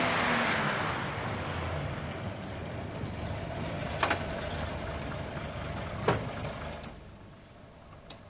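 A low rumble with a hiss on top, slowly fading away over several seconds. A few sharp clicks or knocks come near the middle and again near the end.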